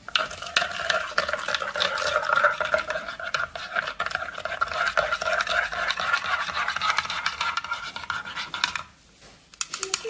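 Coffee being stirred briskly in a ceramic mug: a utensil scraping and clinking round the inside of the mug, with a steady ringing from the mug. It stops about nine seconds in, followed by a few quick taps.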